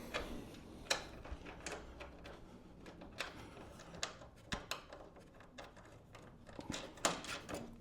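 Scattered light clicks and taps of metal shell parts and fasteners being handled and fitted together by hand, with a slightly louder knock or two near the end.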